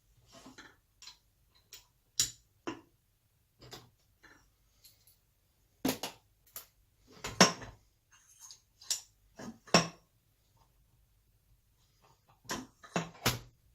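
Irregular sharp metallic clicks and clinks of small parts being handled: the jet and jet lock nut of an SU HD8 carburettor being taken off and refitted by hand while the jet is re-centred.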